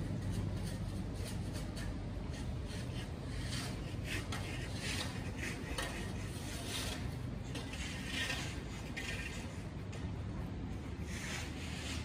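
Snow shovel scraping over a slushy sidewalk in a series of rasping strokes, loudest through the middle, over a low steady city rumble.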